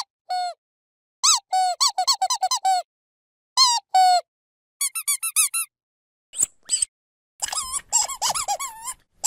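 A dog's squeaky toy squeezed again and again in quick runs of short squeaks, each squeak an arching rise-and-fall in pitch, with short silent pauses between the runs.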